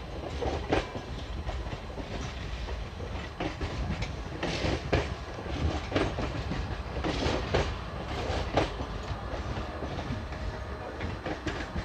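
Three-phase MEMU electric train running past as it pulls out, its wheels clacking irregularly over the track above a steady low rumble.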